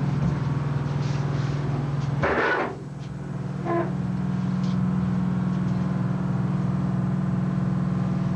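Steady low machinery hum, like a running engine, with a short rustling scrape about two seconds in.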